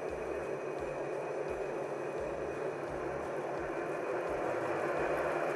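Vertical milling machine spindle running with a fly cutter fitted, being brought up in speed on its motor speed controller: a steady whir with a faint high whine, slowly getting louder.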